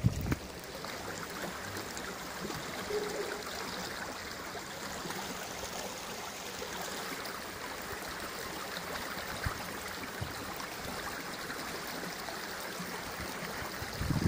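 A small river runs steadily through the concrete pipes under a culvert bridge, making an even, continuous rushing of water.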